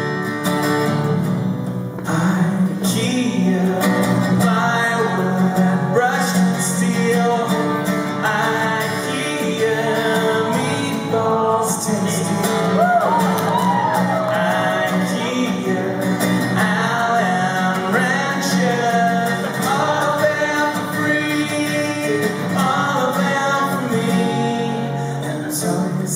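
Live song performance: acoustic guitar strumming steadily with singing over it.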